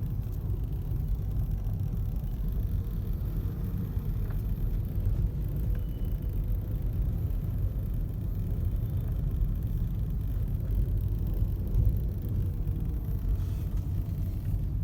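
Steady low road and engine rumble inside the cabin of a Hyundai Grand i10 Nios on the move, with a few faint rattles from the dashboard, the fault the owner complains of in so new a car.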